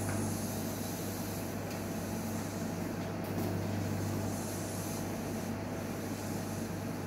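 Newmed Kronos S benchtop steam autoclave running a sterilising cycle: a steady low hum with a hiss over it that swells and fades every second or two.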